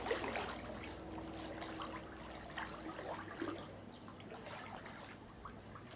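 Pool water splashing and lapping gently as a swimmer and a small dog paddle through it. It is a little livelier at the start, then settles to soft sloshing. A faint steady hum is heard for the first three seconds.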